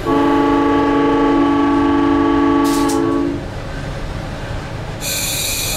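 SunRail commuter train air horn sounding one long blast of about three seconds, a chord of several notes. A hiss starts near the end.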